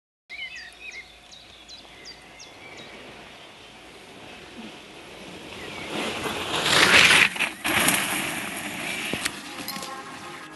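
Outdoor ambience: short bird chirps near the start, then a loud rushing noise that swells, peaks about seven seconds in with a brief drop, and fades away.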